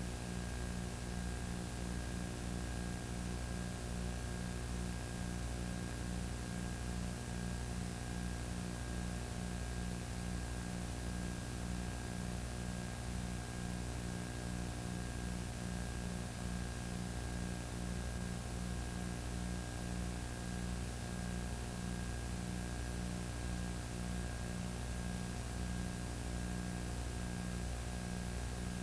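Steady electrical hum and hiss of a recording chain with no real sound on it, with a low buzz pulsing about twice a second.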